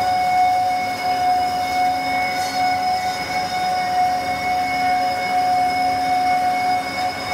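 Amada H-1080 industrial band saw running, a steady high-pitched whine that holds one pitch throughout, over general machine noise.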